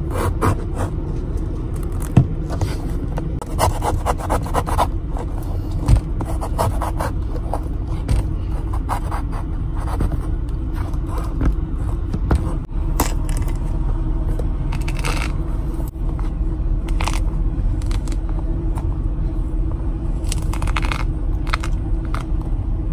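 A pomelo being peeled by hand: irregular scratchy tearing and scraping of its thick rind, over a steady low engine hum.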